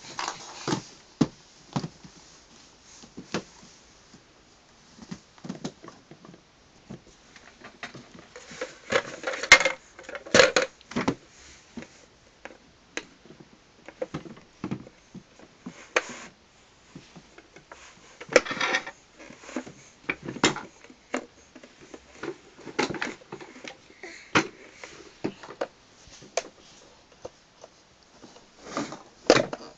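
Irregular clicks and knocks of hard plastic toys being handled by a toddler, including a plastic shape-sorter toy, with a few louder clusters of clatter.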